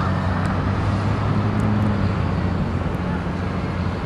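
A motor vehicle's engine running steadily, a low drone, over the hiss of road traffic.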